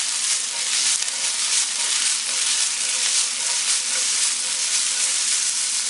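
Beef and vegetable stir fry sizzling steadily in a hot nonstick frying pan on an electric stove, while the pan is shaken to toss the food.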